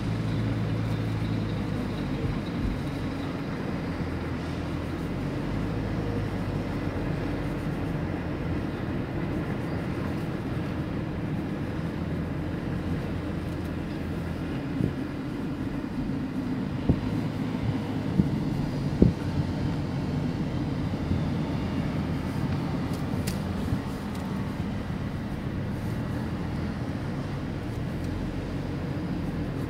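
Steady road and engine noise of a car driving, heard from inside the cabin, with a few short knocks in the middle stretch.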